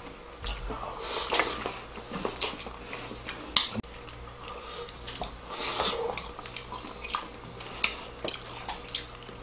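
Mealtime table sounds: chopsticks clicking against ceramic bowls and plates, with chewing. The sharpest clack comes about three and a half seconds in, and another near the end.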